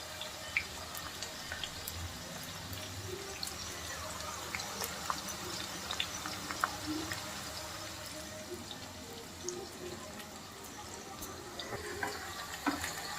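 Chopped onions frying in hot oil in a pan: a steady sizzle with scattered small crackles and pops.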